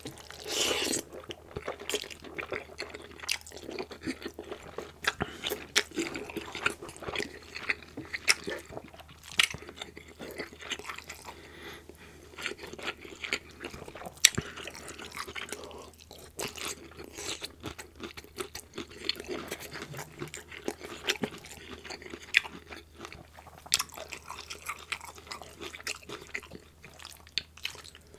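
Close-miked chewing and wet mouth sounds of eating gravy-covered egg noodles and green beans, mixed with clicks and scrapes of a metal fork on the wooden board. The sharpest click comes about 14 seconds in.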